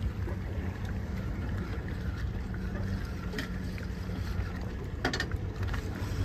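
A fishing boat's engine running steadily at low speed, a low even hum, with wind and water noise around it. A brief rattle sounds about five seconds in.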